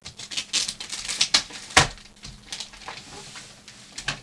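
Packing material of a shipped parcel rustling and crackling in quick clicks as it is handled and unpacked, with one sharper knock a little under two seconds in.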